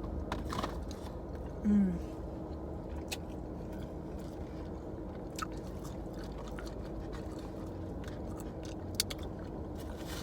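Loud mukbang eating sounds: chewing with wet lip smacks and sharp mouth clicks scattered through, over a steady low hum. A short humming vocal sound, falling in pitch, is the loudest moment about two seconds in.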